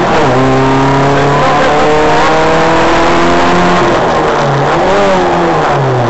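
Rally car engine heard from inside the cabin, running hard at high revs: an upshift just after the start, then the pitch climbs slowly as the car pulls through the gear. Near the end the revs fall as the car slows.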